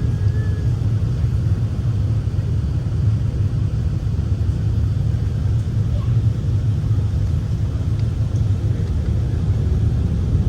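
Steady low rumble of an Airbus A380's engines and airframe, heard from inside the passenger cabin.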